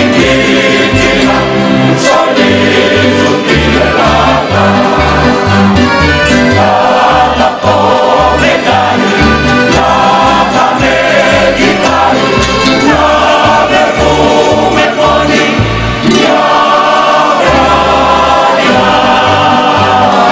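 Heptanesian kantada: a group of voices singing in harmony over instrumental accompaniment, with a bass line moving note by note.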